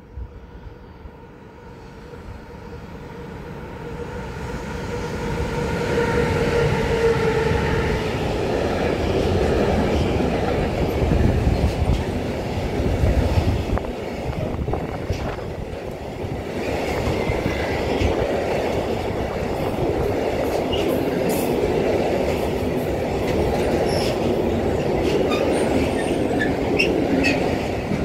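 Freight train with an electric locomotive approaching and passing. Its steady whine grows louder over the first few seconds and gives way, about eight seconds in, to a long run of wagons rumbling and clicking over the rail joints. Brief wheel squeals come in the second half.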